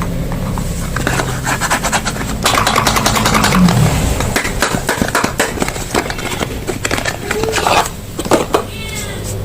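Soap packaging being opened by hand: irregular crinkling, crackling and scraping of wrappers and boxes, over a steady low hum.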